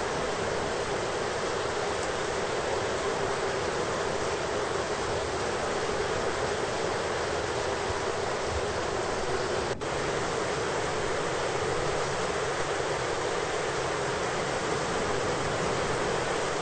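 Steady hiss of heavy rain from a thunderstorm ambience track, even throughout with no thunder. There is a momentary dropout about ten seconds in.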